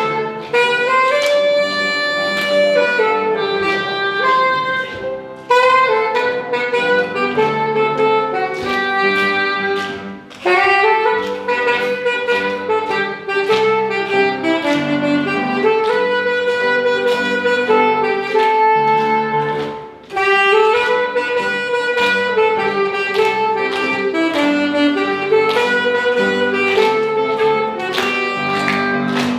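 Instrumental music: a sustained lead melody with a reedy, saxophone-like tone over chords and a steady beat. It pauses briefly twice between phrases.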